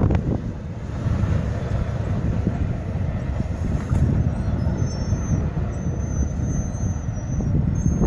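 CSX local freight train moving away down the track, leaving a steady low rumble.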